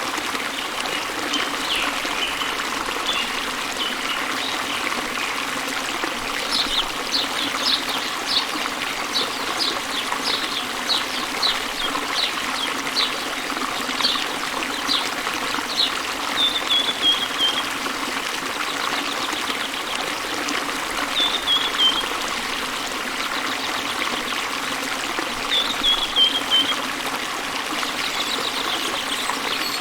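Small waterfall and river running steadily, with birds singing over it: a run of short chirps, nearly two a second, for several seconds, then three short descending trills spread across the rest.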